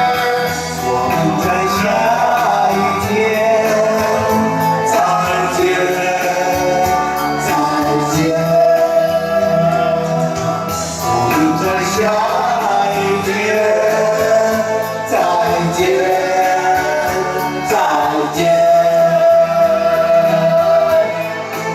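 Song with a singing voice over band accompaniment: a melody of long held notes that slide between pitches.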